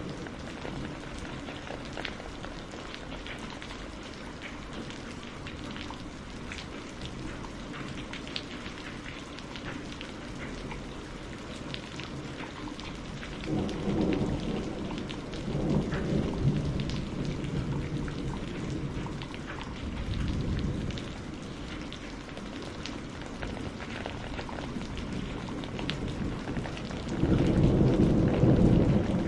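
Steady rain falling, with scattered drop ticks over a constant hiss. Thunder rumbles roll in about halfway through, again briefly a little later, and louder near the end.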